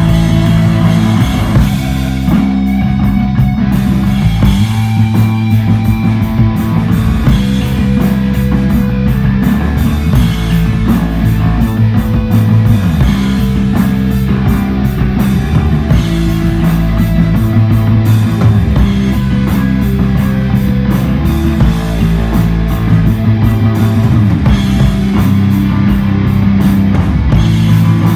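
A desert rock band playing live, loud and instrumental: electric guitar, heavy sustained bass and drums, with no singing.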